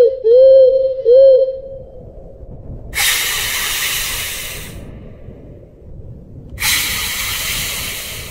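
A loud wavering tone that swoops up and down three times and stops about two seconds in, then two long hisses, each starting suddenly and fading away over about two seconds.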